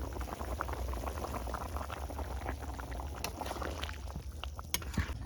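Chicken curry bubbling as it simmers in the pan: a dense, uneven patter of small pops and crackles.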